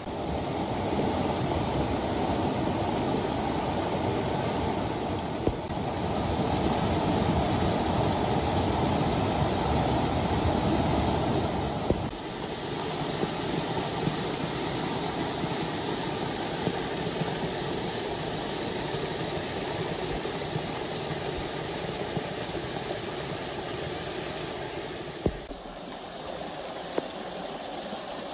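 Rushing storm floodwater: muddy runoff pouring down a ravine and along a washed-out dirt road, a steady noise of water with no lulls. The sound shifts at cuts about 6, 12 and 25 seconds in, and is quieter over the last few seconds.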